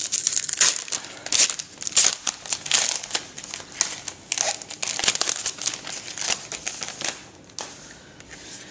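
Plastic wrapping crinkling and rustling in quick, irregular bursts as hands unwrap a pack of trading cards, dying down near the end.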